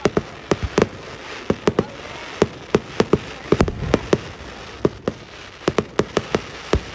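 Aerial firework shells bursting in a rapid barrage: more than twenty sharp bangs at uneven intervals, often two or three in quick succession.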